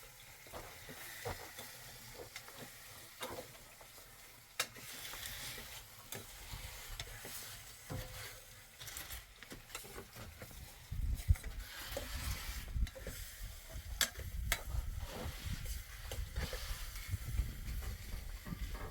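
Tomatoes and eggplant frying and sizzling in a pan over an open fire, with scattered sharp clicks. A little past halfway a low rumble comes in underneath.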